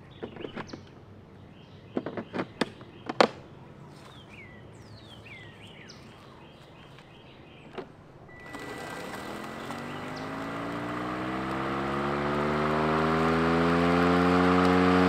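A few sharp clicks as batteries are latched into a Worx Nitro cordless mower. Then, about eight seconds in, its electric motor and blade start, a pitched hum that rises slowly, grows louder and steadies over several seconds.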